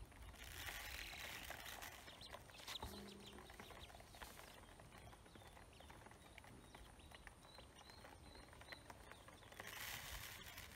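Ducklings pecking feed from a plastic basin: faint, rapid tapping of their bills on the plastic, with a short run of faint high peeps about two-thirds of the way through.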